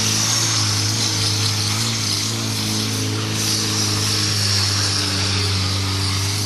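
Motorcycle engine running at fairly steady revs, its note wavering slightly as the bike is ridden slowly in circles, with a steady hiss above it.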